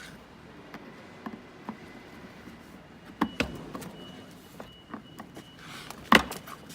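Plastic base plate of an upside-down Ariston dishwasher being worked open by hand: scattered clicks and knocks, with a brief scrape and a loud knock about six seconds in.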